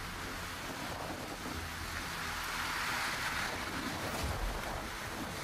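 Steady rush of floodwater, swelling a little about halfway through, with low gusts of wind buffeting the microphone.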